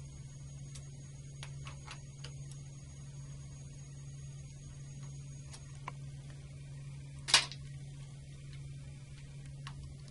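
Light ticks of a Phillips screwdriver turning out the mounting screws of a brass Kirk key lock on a circuit breaker, over a steady low hum. About seven seconds in comes one short, sharp metallic clink, the loudest sound.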